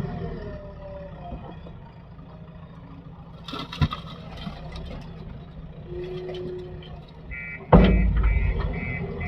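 Heavy diesel machinery engine running steadily, with a sharp clank about three and a half seconds in. Near the end, a warning beeper starts sounding about twice a second, and the engine suddenly gets much louder.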